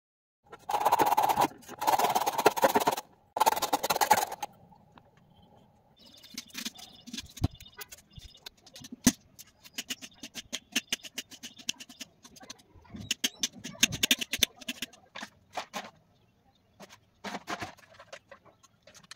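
A kitchen knife slicing an onion directly on a stone countertop, in many quick, irregular sharp clicks as the blade taps the surface. Before that, starting about half a second in, three loud bursts of harsh noise, each about a second long.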